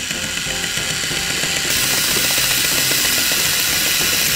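Plarail toy Shinkansen's small battery motor and plastic gears whirring as the train runs along plastic track, getting louder about a third of the way in as it passes close by.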